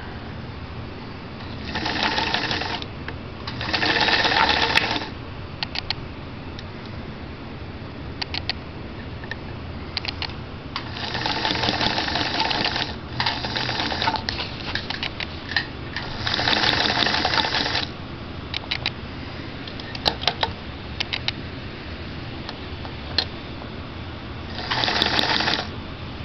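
Vintage New Home zigzag sewing machine stitching through fabric in short runs, its motor starting and stopping about six times. Light clicks and taps come between the runs.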